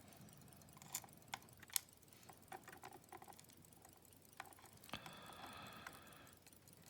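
Faint, scattered light clicks of tweezers and tiny brass lock pins and wafers being picked up and set down while a disassembled Yale pin-tumbler cylinder's pin stacks are sorted, the sharpest a few ticks about a second in.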